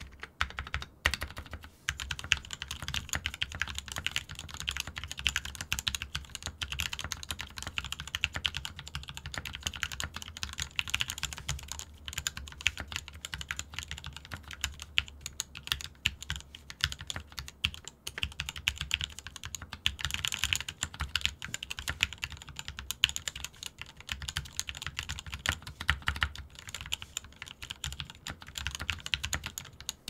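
Typing on a custom 60% mechanical keyboard: lubed Gateron Black Ink linear switches on a brass plate in a frosted acrylic Tofu case, with XDA keycaps. A few single keystrokes in the first two seconds, then a steady run of fast typing.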